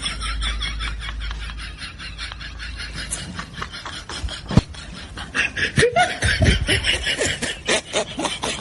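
Laughter sound effect: a person snickering and chuckling in quick repeated pulses. A single sharp tap sounds about four and a half seconds in.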